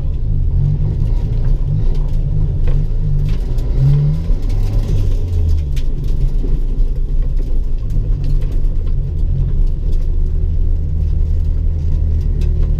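Car engine running with a steady low rumble, its pitch dropping about four to six seconds in and then holding.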